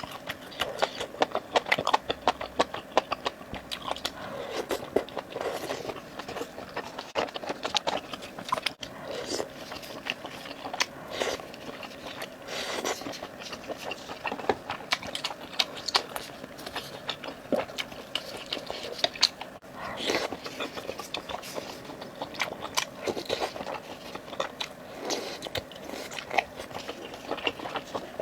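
A person biting and chewing food close to the microphone, with many short, irregular crunchy clicks.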